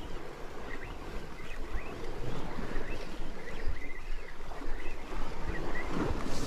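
Sea washing against rocks with wind buffeting the microphone, in irregular low gusts. A few faint short chirps sound through it.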